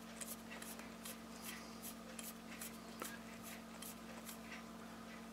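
Crown of a Ronda 5030.D quartz chronograph movement being turned in the date-setting position, giving a faint, rapid ticking of about four clicks a second as the quick-set date advances.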